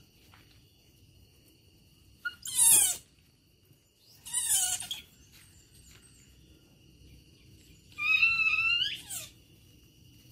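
Baby macaque calling three times: a high squeal sweeping down in pitch, a shorter falling squeal, then a longer wavering call that rises at the end.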